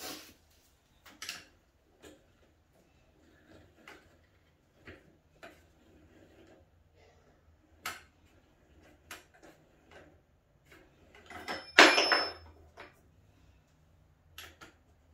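Scattered light knocks and clicks of hands working fittings into a wooden flat-pack stool frame, with one louder, noisier burst lasting about a second around twelve seconds in.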